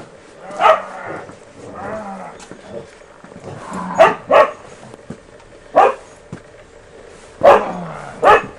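A dog barking: six sharp barks, two of them close together about four seconds in and two more near the end, with softer whining sounds between them.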